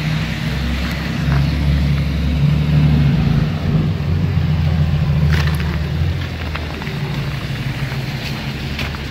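A motor vehicle engine running close by: a steady low rumble, with a sharp click about five seconds in.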